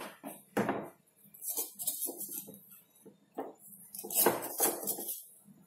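Irregular clinks and knocks of a spoon and steel kitchen containers being handled, with a sharp knock about half a second in and a longer clatter about four seconds in.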